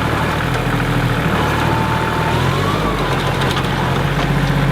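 Engine of a stuck vehicle running steadily while it is manoeuvred back and forth, its pitch stepping up slightly about halfway through.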